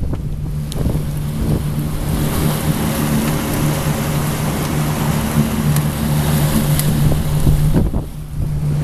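Small motorboat's engine running steadily under way, a held low hum, with wind and rushing water from the wake over it; the rushing dips briefly near the end.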